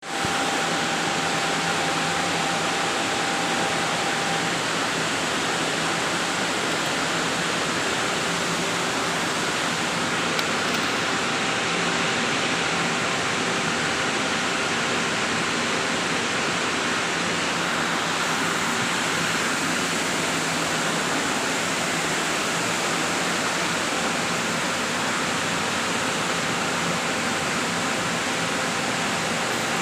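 Machinery running steadily: an even rushing noise with a few faint steady hum tones, typical of a large blower or fan.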